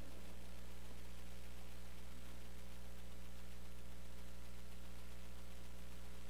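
Steady low electrical mains hum with faint hiss.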